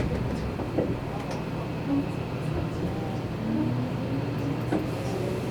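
Seibu Railway commuter train running between stations, heard from inside the carriage: a steady rumble of wheels on rail. From about halfway in, the electric traction motors add a faint whine that rises in pitch as the train speeds up.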